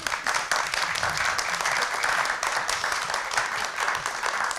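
An audience applauding: the dense, even clapping of many hands.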